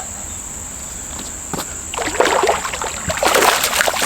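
Hooked largemouth bass thrashing and splashing at the water's surface as it is brought in, a dense run of splashes starting about two seconds in. Crickets chirp steadily underneath.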